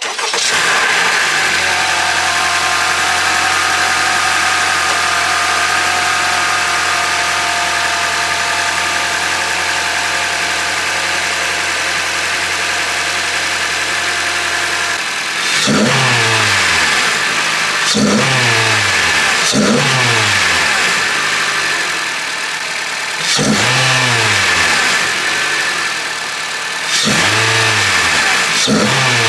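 2022 Honda Civic Sport's 2.0-litre four-cylinder engine, fitted with an AEM short ram intake, catching on start-up and settling into a steady idle. From about halfway it is revved in five quick blips, each rising sharply and falling back to idle.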